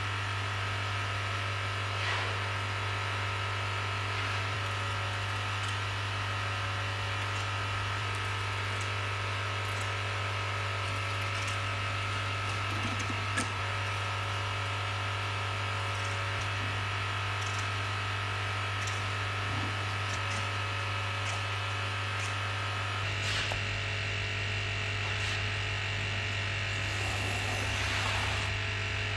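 Electric vacuum pump for vacuum bagging running steadily with a constant hum, its tone changing about 23 seconds in.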